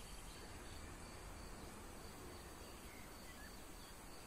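Faint rural outdoor ambience: a steady, high insect drone like crickets, with a couple of faint short chirps.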